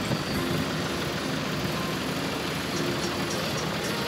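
JCB telehandler's diesel engine running steadily.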